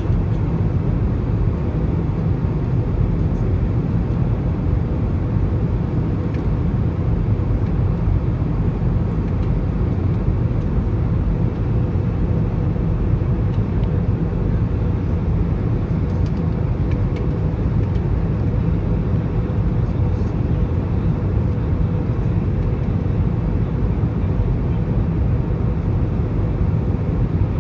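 Steady cabin noise inside an Airbus A320 on approach: a low, even rumble of engines and rushing air, with a thin steady tone above it.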